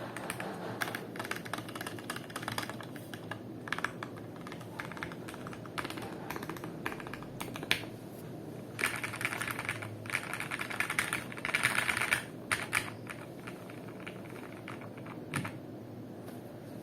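Typing on a custom 60% mechanical keyboard with lubed and filmed Gateron Milky Black linear switches, PBT keycaps and a polycarbonate plate in an acrylic case: a steady run of keystrokes, with two quicker, louder flurries in the middle and a few single heavier strokes.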